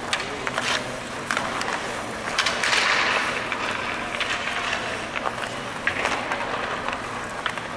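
Ice-hockey skate blades scraping and carving across the ice, with scattered sharp clicks of sticks and pucks. A louder hissing scrape comes about two and a half seconds in and lasts about a second.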